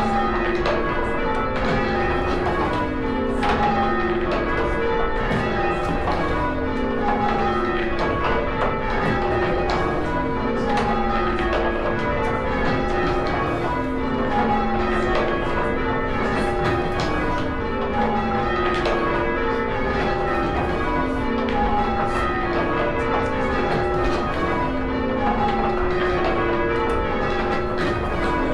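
Church tower bells being rung full-circle in change ringing. A continuous stream of strikes runs in rows from the highest bell down to the lowest, each row lasting about two seconds, one after another.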